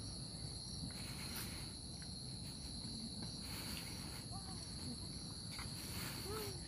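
Steady, high-pitched insect chorus, an unbroken chirring, over a faint low rumble.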